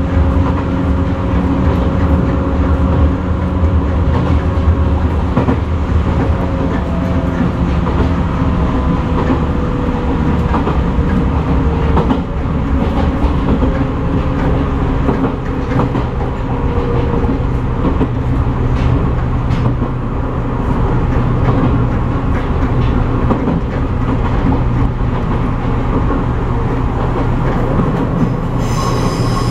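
Izu-Hakone Railway 13000 series electric train running, heard from inside the front of the car: a steady rumble with scattered clicks from the wheels over the rails, and a whine that slowly drops in pitch. Near the end the wheels start to squeal as the train takes a curve.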